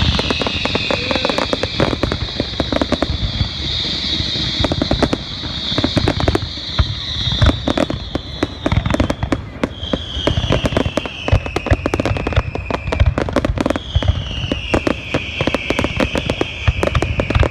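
Fireworks going off in a dense run of bangs and crackles, with high whistles that slowly fall in pitch: one long one through the first half, then two shorter ones.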